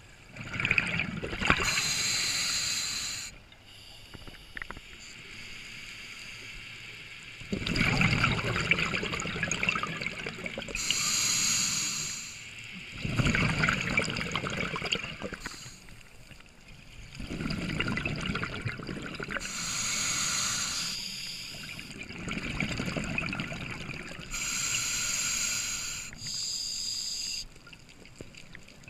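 Scuba diver breathing through a regulator underwater: short hissing inhalations alternate with longer bubbling exhalations, several breaths in a slow, even rhythm.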